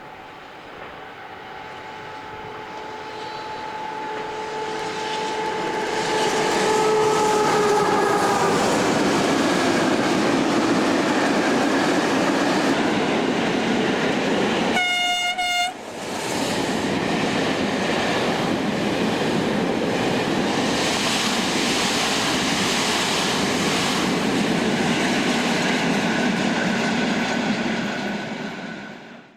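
Train approaching and passing close by, with a steady rolling noise of wheels on rail that builds over the first few seconds. Held tones sink slightly in pitch as it nears. A short horn blast sounds about halfway through, and the sound cuts off abruptly near the end.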